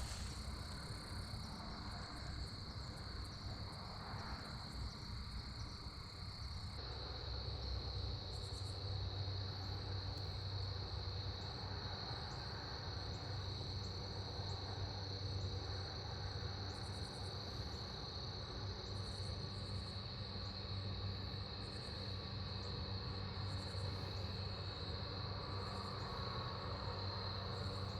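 Crickets chirping in a steady, unbroken chorus, a single high-pitched trill that grows a little louder about a quarter of the way in.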